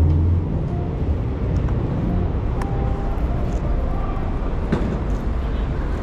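City street traffic: vehicles rumbling past, with a louder low engine sound that drops away about half a second in.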